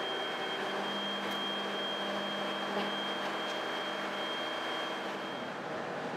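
Steady machine drone with a thin high whine over it; the tones drop away about five seconds in.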